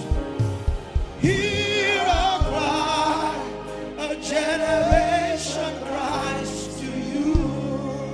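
Live church worship music: singers, with a choir behind them, holding long wavering notes over keyboard and drums.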